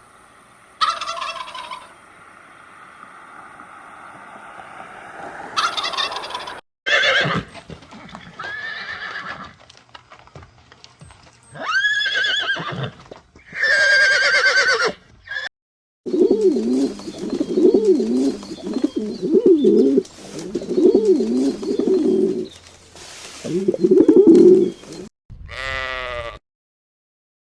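Farm animal calls in a string of separate clips with abrupt cuts between them: several arched, rising-and-falling calls, then a run of low wavering calls repeated many times, and a short call near the end.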